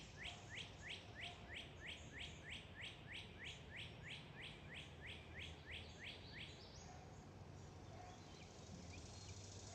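A songbird singing a long, fast series of identical down-slurred whistled notes, about three a second, which stops about two-thirds of the way through. After that a faint steady high buzz carries on.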